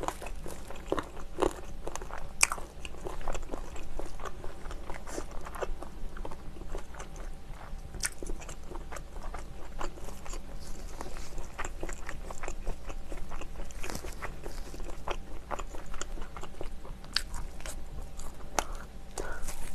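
Close-miked chewing and biting of fried chicken: a continuous run of crunching and small mouth clicks, with a few sharper crunches as bites are taken.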